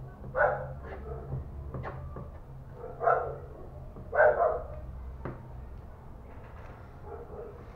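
A dog barking three times in short single barks, about half a second, three seconds and four seconds in, over a low steady hum.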